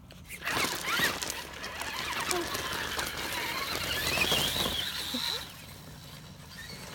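RC monster truck driving off across loose gravel and grass: a crackle of tyres on stones and a thin motor whine that rises near the middle, then fading a little after five seconds as it gets farther away.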